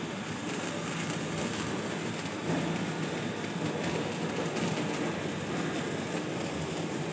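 Paper plate lamination machine running steadily, its rollers and drive shafts making a continuous mechanical noise as the paper web feeds through.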